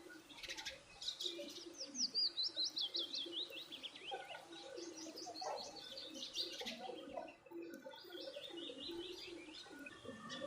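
Small birds chirping: a fast run of high chirps that falls in pitch about two seconds in, then more quick chirp runs later, over lower, softer calls.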